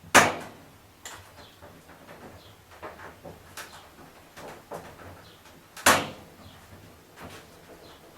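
Two sharp knocks about five and a half seconds apart, with lighter clicks and handling noises between them, as a grommet is worked onto the edge of a hole in corrugated tin sheet.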